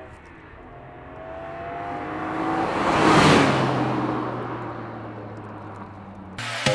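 A car accelerating past: the engine's pitch climbs, breaks briefly for a gear change and climbs again as it approaches, it is loudest with a whoosh about three seconds in, then it drops to a lower steady note as it moves away. Electronic music cuts in abruptly near the end.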